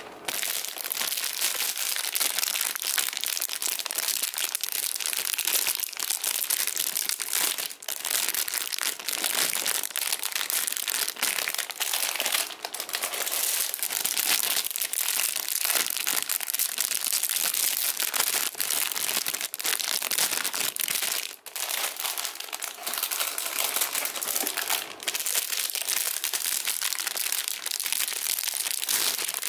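Thin clear plastic bags crinkling and rustling without pause as the bagged plastic model-kit runners inside them are handled and pulled about.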